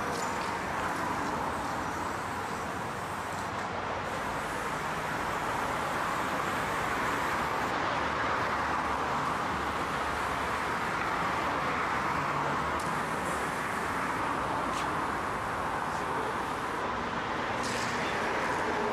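Steady traffic noise that swells and eases slowly.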